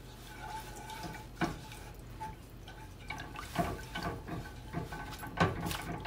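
Silicone spatula stirring a thin strawberry syrup in a small metal saucepan: wet sloshing with scattered light taps and scrapes against the pan, several of them in the second half.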